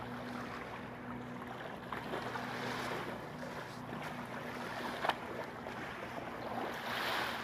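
Lake water sloshing as a person wades through shallow water, with small waves lapping at the shore. A single brief click about five seconds in.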